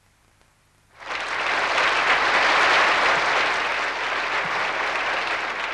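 Audience applause that breaks out suddenly about a second in and then holds steady.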